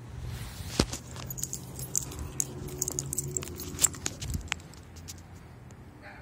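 Handling noise as the phone is moved about: a quick run of light clicks and jingly rattles that stops about four and a half seconds in, over a steady low hum.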